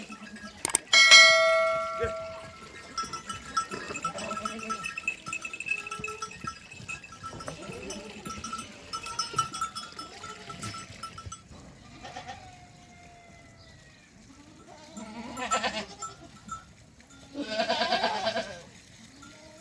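Livestock neck bells ringing, with a sharp clang about a second in, followed by two loud bleats from the flock near the end.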